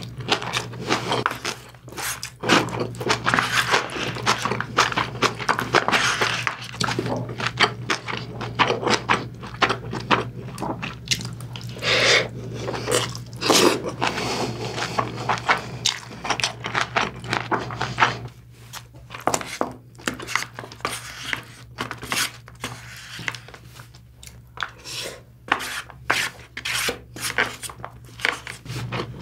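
Close-miked chewing and wet mouth sounds of someone eating braised kimchi stew with pork belly and rice, busiest in the first two-thirds and sparser near the end, over a steady low hum.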